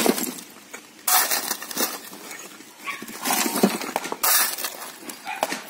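Shovel scraping into broken-brick rubble and tipping bricks and dust into a wheelbarrow, with clattering chunks. There is a knock right at the start and two long scrapes, about a second in and about four seconds in.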